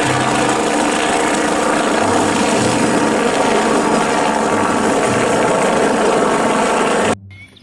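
Police Bo 105 helicopter hovering low, its turbines and rotor running steadily; the sound stops suddenly about seven seconds in.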